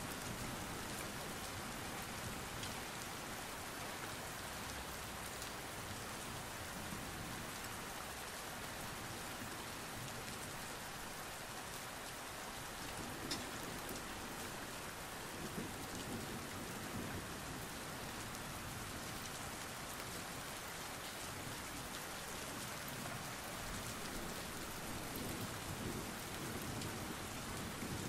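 Steady rain falling, an even hiss with a few scattered drop ticks.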